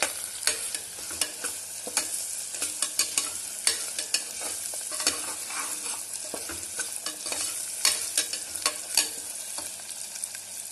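Chopped onions and ginger-garlic paste frying in oil in a pressure cooker, sizzling steadily while being stirred, with frequent clicks and scrapes of the utensil against the metal pot.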